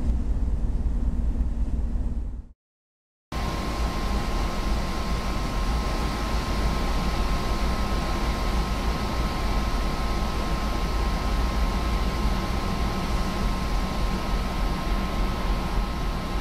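Steady drone of a car ferry under way, heard on its open deck: a low engine rumble under a fan-like rush of machinery noise. It drops out for under a second near the start, and after that a steady whine of two high tones runs over the drone.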